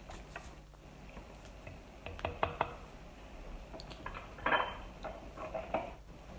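Light clinks and taps of a measuring spoon and containers against a mixing bowl while ingredients are being added, in a cluster about two seconds in, then a brief scrape and a few lighter taps.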